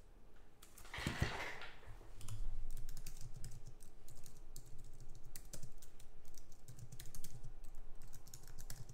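Typing on a computer keyboard: a run of quick, light key clicks.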